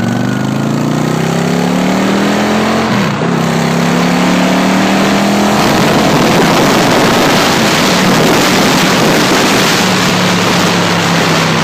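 Motorcycle engine pulling a sidecar rig, accelerating through the gears: its pitch rises, drops briefly at a gear change about three seconds in, and rises again. From about halfway it holds steady at speed while heavy wind noise on the microphone grows over it.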